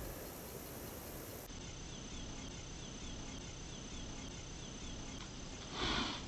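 Quiet outdoor ambience: a faint steady hiss with soft, evenly repeated high chirps, about three a second, typical of insects. A brief louder noise comes just before the end.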